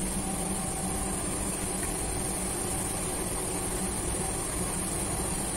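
Steady drone of a commercial kitchen's exhaust hood fans and ventilation running, with a low rumble and a high hiss held at a constant level.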